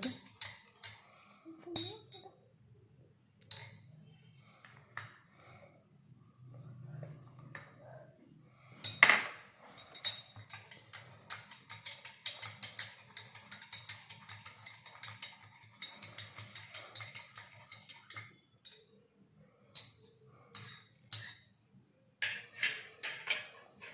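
Stirring a baking soda, soap and food-colouring mixture in a container, the stirrer clinking and tapping irregularly against its sides, with one louder knock about nine seconds in.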